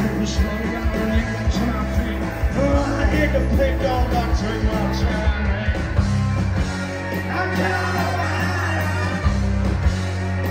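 Live rock band playing loudly: electric guitars, bass, drums and horns, with vocals. About two-thirds of the way through the beat thins out and a long low bass note is held.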